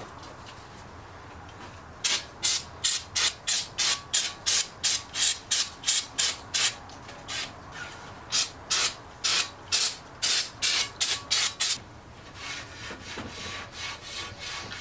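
Rhythmic back-and-forth scrubbing on a three-piece BBS wheel lip to clean off dirt. It starts about two seconds in at two to three strokes a second, with a short break midway. It stops about twelve seconds in and gives way to fainter, quicker rubbing.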